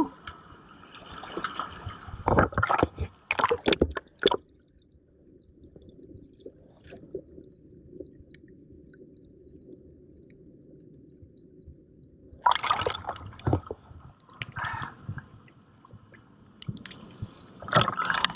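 Tide-pool seawater splashing and gurgling close to the microphone, with a dull, muffled stretch of about eight seconds in the middle before the splashing returns.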